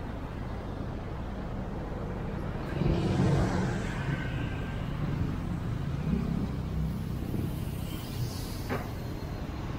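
City road traffic: a steady rumble of vehicle engines and tyres, with a louder vehicle going by about three seconds in and a short sharp sound near the end.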